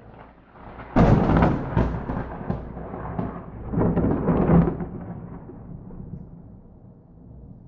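Thunder from a nearby lightning strike: a sharp crack about a second in, then rolling rumbles with a second swell around four seconds, dying away toward the end.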